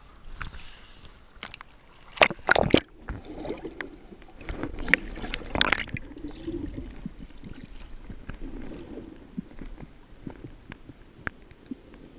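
Seawater sloshing and splashing around a camera held at the surface, with a cluster of sharp loud splashes a little over two seconds in and more splashing around five to six seconds in.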